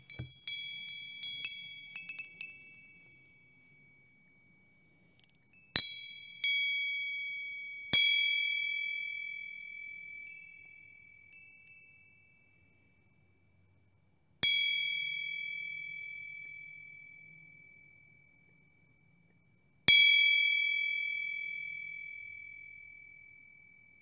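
Small high-pitched Tibetan bells struck one at a time. A few quick light strikes come in the first couple of seconds, then five single strikes a few seconds apart, each ringing out clearly and fading away slowly.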